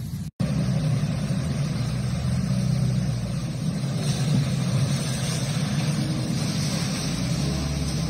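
Steady low rumble with hiss over it, from a phone recording made outdoors in a hailstorm's aftermath. It cuts out for a moment just after the start, and the hiss grows about halfway through.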